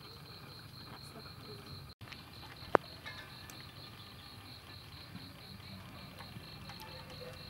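Insect chirping steadily outdoors, a high pulsing trill of about four pulses a second, over a low background hum. A single sharp click stands out a little before the three-second mark.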